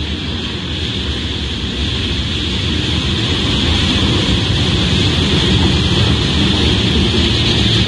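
Diesel locomotive running into the station on the adjacent track, its engine rumble growing steadily louder as it comes closer, over a steady high hiss.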